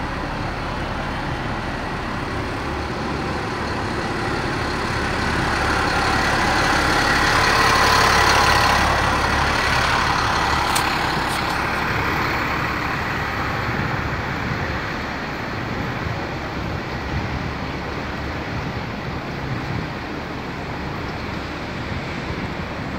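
City road traffic noise, steady, with a vehicle's sound rising and fading as it passes about eight seconds in.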